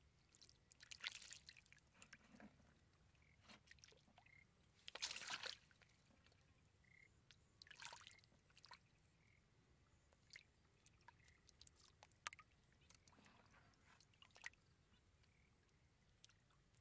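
Faint water sounds: shallow muddy water trickling and dripping through a wooden-stake fish trap, with a few brief splashes. The loudest splash comes about five seconds in.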